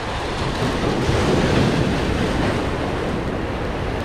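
Surf surging and breaking against jetty rocks, a steady rushing that swells about a second in, with wind buffeting the microphone.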